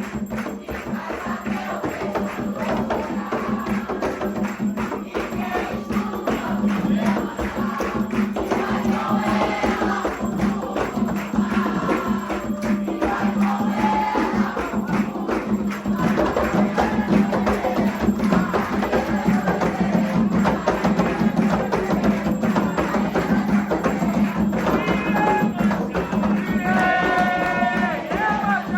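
Music led by hand percussion with a fast, dense beat, with voices singing over it at times, most clearly near the end.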